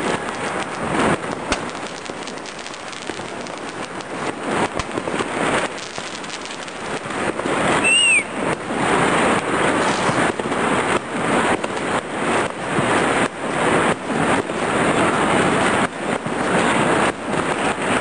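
Dense, continuous crackling and banging of firecrackers and fireworks going off all around, louder from about eight seconds in. A short whistle rises and falls about eight seconds in.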